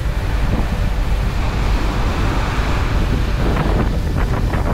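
Strong wind buffeting the microphone over the steady wash of breaking ocean surf.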